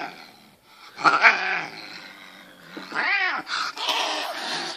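Domestic cat growling and yowling in two drawn-out calls, about a second in and again around three seconds in, with a hissy stretch after the second. It is the sound of an agitated, aggressive cat, which the owner puts down to the scent of her two male cats.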